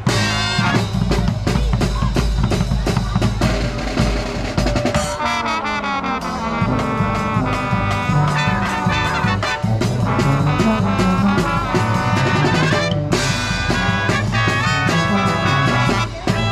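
Live marching band playing a brass tune: trumpets, trombones and sousaphones over a steady drum beat.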